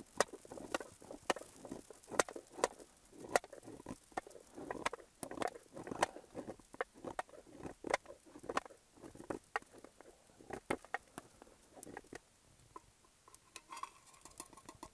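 Knife blade scraping shavings off a block of beeswax, a string of short scratchy strokes at about two a second that thin out after about twelve seconds.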